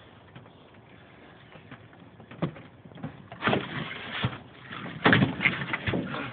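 Irregular knocks and thumps with rustling, loudest about five seconds in.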